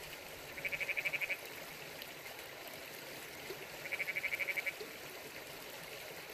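A frog calling twice with short, rapid pulsed trills, each under a second long, over the steady rush of a creek.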